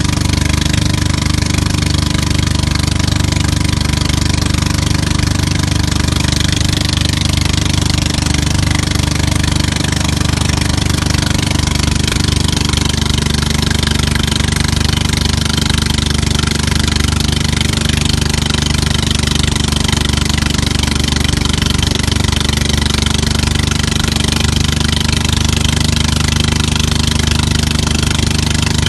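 The tow boat's engine runs steadily under load while pulling a banana boat, with a steady hiss of wind and water over it.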